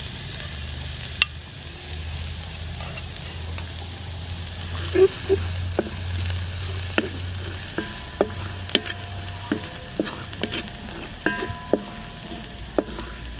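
Minced garlic sizzling in hot soybean oil in a wide metal wok, stirred with a wooden spatula that scrapes and knocks against the pan in sharp clicks, more often in the second half.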